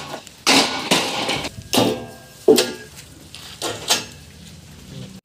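A handful of sharp metal knocks and clanks from steel box-section tubes, spread unevenly, each trailing off briefly.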